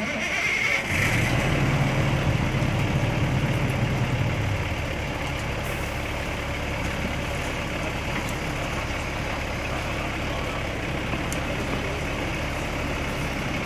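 A large vehicle's engine running steadily, its low hum stronger for the first few seconds.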